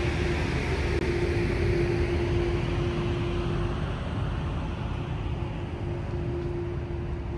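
Steady hum of a docked car ferry's engines and machinery waiting to depart, with a low rumble and one constant drone that drops out briefly about halfway through.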